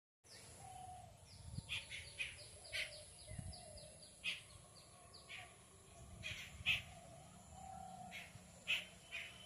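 Several birds calling: runs of short, quick, falling chirps at irregular intervals, with a few louder calls standing out.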